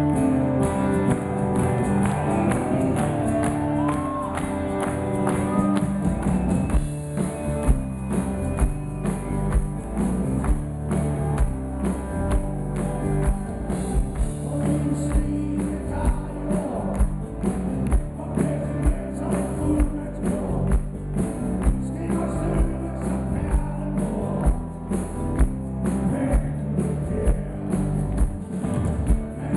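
Live rock band playing through a PA: electric guitars, keyboard and drums. A steady drum beat comes in about six seconds in.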